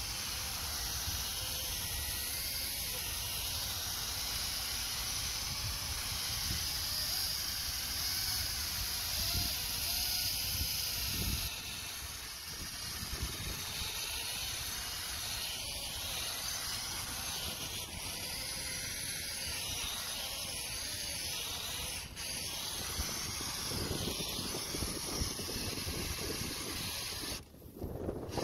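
A 12-volt cordless polisher running steadily, its foam pad working over a plastic headlight lens, heard as an even hiss-like noise that drops out near the end.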